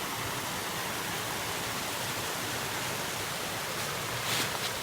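Steady rush of flowing creek water, with a brief scuff about four and a half seconds in.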